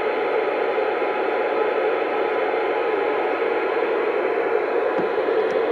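Steady hiss of static from a CB radio receiver on an open FM channel, the squelch open and no station transmitting.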